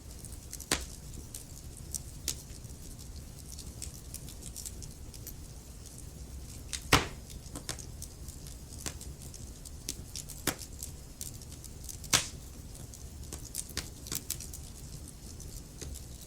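Wood fire crackling and popping in a fireplace: sharp pops at uneven intervals over a low, steady rumble of the flames. The loudest pop comes about seven seconds in, and another strong one about twelve seconds in.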